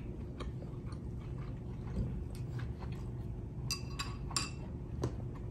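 Tableware clinking at a meal: chopsticks tapping on ceramic dishes and bowls, with light scattered clicks and a few brief ringing clinks about four seconds in, over a low steady room hum.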